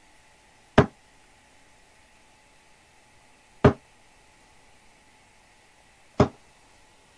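Three darts thudding into a Winmau Blade 5 bristle dartboard one by one, a sharp single hit every two and a half to three seconds.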